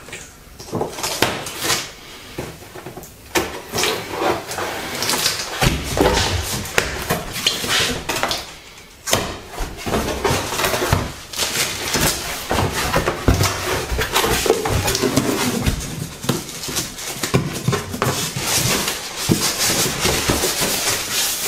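Cardboard packaging being handled: a grill's shipping box opened, with flaps and inserts scraping, rustling and knocking irregularly, and plastic-wrapped parts shifted inside.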